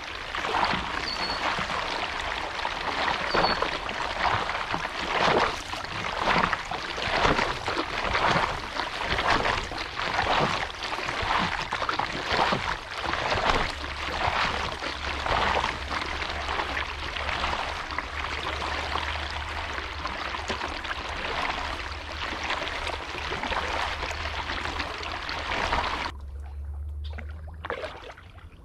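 Kayak paddle strokes splashing into the water about once a second, over the steady rush of water along the hull. Near the end the paddling stops and only a quieter water sound remains.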